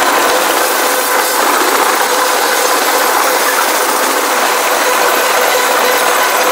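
Union Pacific freight train of tank cars and covered hoppers rolling past, a loud, steady rattling noise of wheels and car bodies on the rails, with a faint steady whine.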